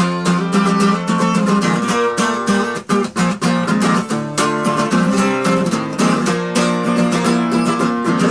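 Acoustic guitar strummed steadily through a chord progression, with a brief break about three seconds in.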